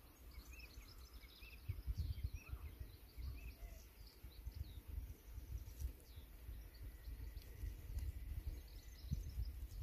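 Wind gusting on the microphone in low, uneven buffets, strongest about two seconds in and again near the end, with small birds chirping and singing over it.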